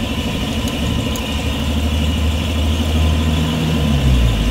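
Air compressor running with a steady low drone, building up air pressure for a leak test; its pitch shifts briefly near the end.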